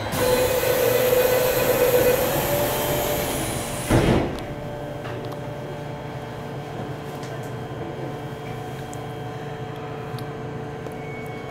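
Subway car doors closing: a steady tone over a loud hiss for about four seconds, then the doors shut with a thud. After that, the steady hum of the stationary car.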